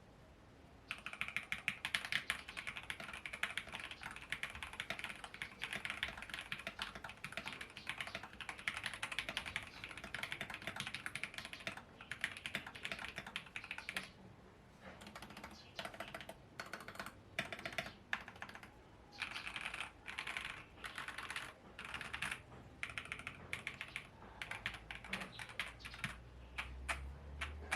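Typing on a mechanical keyboard fitted with JWK Lagoon 5-pin tactile switches and OEM-profile blank keycaps, a deep thocky sound. Fast continuous typing runs for about ten seconds, then comes in shorter bursts with brief pauses.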